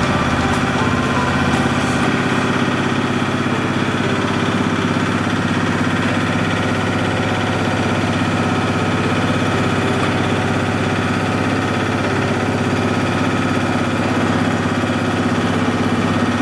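Rotary drying machine running steadily with an even, engine-like hum; its deepest hum drops away about two seconds in.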